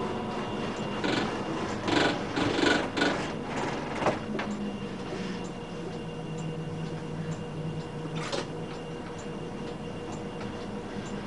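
NGT8 tram running slowly on its tracks, heard from on board: a run of clattering knocks about one to four seconds in, then a steady low hum.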